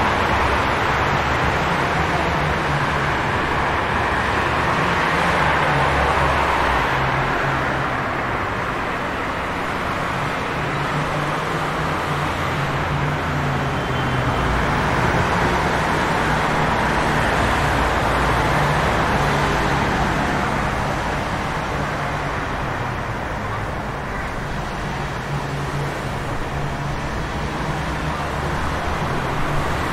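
City street traffic in the rain: a steady hiss of tyres on wet road over a low engine rumble, swelling and easing slowly as vehicles pass.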